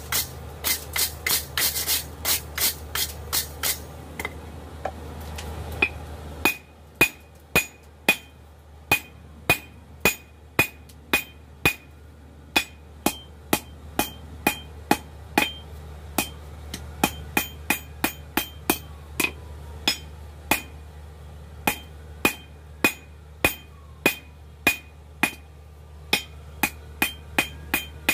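Blacksmith's hammer forging hot coil-spring steel on an anvil: a steady run of strikes, about two to three a second with short pauses, each with a brief high ring. A steady low hum runs underneath.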